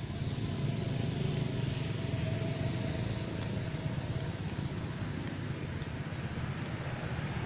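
Steady low rumbling background noise with no distinct events, of the kind left by distant traffic or wind.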